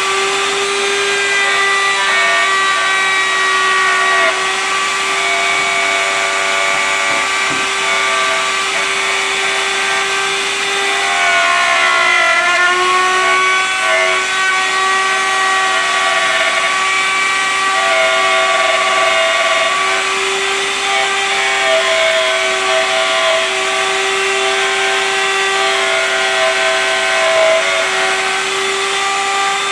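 Trim router running steadily while routing wood against a template, its high motor whine dipping briefly in pitch about halfway through.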